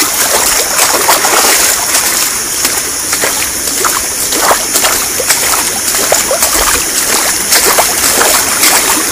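Waterfall water rushing and splashing close to the microphone, a loud steady hiss with many small splashes.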